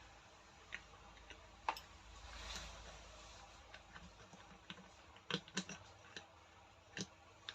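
Scattered light clicks and knocks of rotary hammer parts being handled and fitted during reassembly, a few sharper ones in a quick cluster around the middle and one more near the end.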